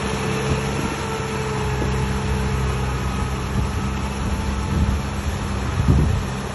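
Diesel engine of a tractor or bulldozer running steadily, with a brief louder low surge about six seconds in.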